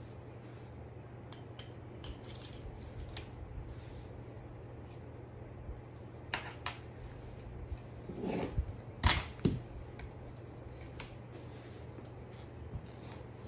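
Light clicks and knocks of aluminium frame parts and a plastic wheel being handled while a dog wheelchair is assembled, loudest as a short run of knocks about two-thirds of the way in, over a steady low hum.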